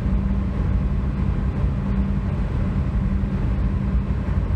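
A vehicle driving at a steady speed: an even engine and road drone with a constant low hum, unchanging throughout.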